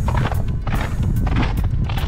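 Strong mountain wind buffeting the microphone in a continuous heavy rumble, with hiking boots crunching on snow about twice a second.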